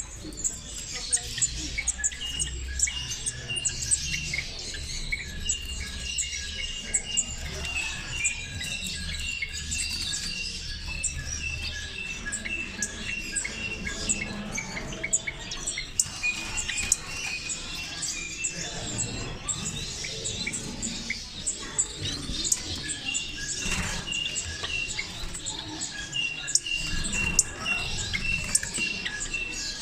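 Many small caged birds chirping and calling at once, a dense steady chatter of overlapping high notes with runs of quick repeated short notes from some of them.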